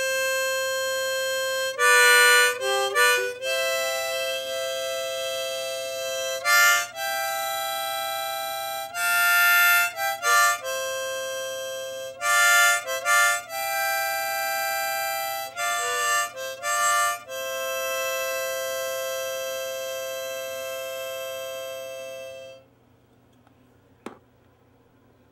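Harmonica playing chords, in short blasts and long held notes, then stopping about 22 seconds in; a single sharp click follows a little later.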